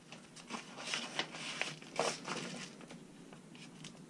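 Paper packaging rustling and crinkling in the hands as it is opened and unfolded, with small scattered crackles that thin out after about two and a half seconds.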